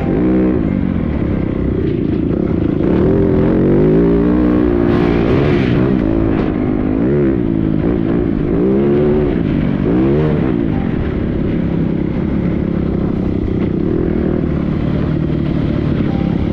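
Dirt bike engine revving up and down under throttle while riding a dirt trail: the pitch rises and falls several times in the first ten seconds, then runs steadier.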